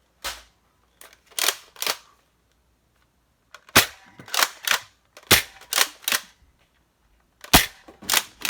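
Adventure Force XL10 pump-action foam-ball blaster being fired and pumped repeatedly: a dozen or so sharp plastic clacks, mostly in quick clusters of two or three, with a second or so of gap between clusters.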